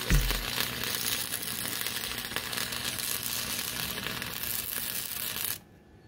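Electric arc welding on steel: a steady crackling sizzle of the arc that cuts off abruptly about five and a half seconds in, when the arc is broken.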